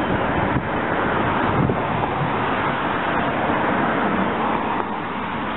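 Steady hiss of rain and wind on the microphone, even and unbroken.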